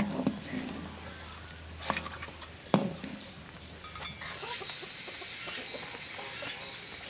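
A metal spatula knocks against a wok a few times in a braising sauce. About four seconds in, a loud, steady sizzling hiss starts: the thick soy-based braising sauce boiling hard over high heat as it reduces.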